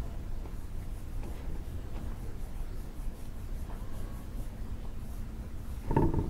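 Faint scratchy rubbing, typical of a brush working epoxy into fibreglass tape, over a steady low hum, with one brief louder sound near the end.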